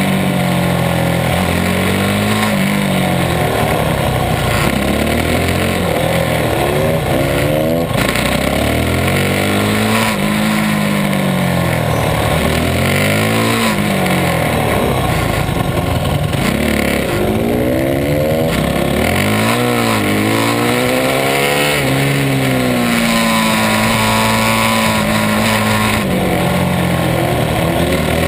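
Supermoto racing motorcycle engine heard from the bike itself, revving up hard and dropping back again and again as it accelerates out of corners and backs off into them, over a constant rushing noise.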